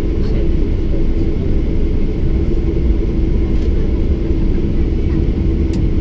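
Boeing 737-800 cabin noise while taxiing: a steady low rumble with a constant hum from the CFM56-7B engines at low thrust, heard from inside the cabin.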